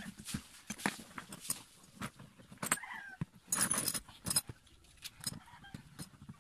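Metal parts of a Makita electric planer being handled during disassembly: scattered sharp clicks and clinks of the blade, clamp plate and screws, with a short jangling rattle a little past halfway.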